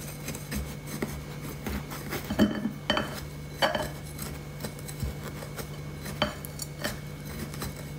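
Kitchen knife scraping and knocking against a ceramic planter and through dry potting soil while prying out a cactus root ball, with a handful of sharp, irregular clicks and scrapes.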